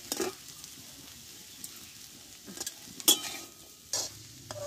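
A steel spatula scraping and clinking against a steel karahi of cooked vegetables, with several sharp metal clinks. The loudest clink comes about three seconds in. A faint sizzle of the still-hot food runs underneath.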